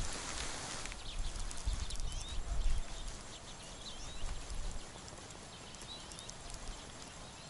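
Low rumble of wind buffeting the microphone, strongest in the first three seconds and then dying down. Faint scattered clicks and short high squeaks come from handling a small ice-fishing rod and its reel.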